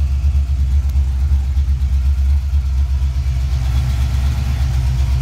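Small-block Ford 302 (5.0 L) V8 with a Trick Flow Track Max cam, long-tube headers and Mac mufflers, idling steadily and heard from inside the car's cabin. The sound is a low, uneven, pulsing exhaust note.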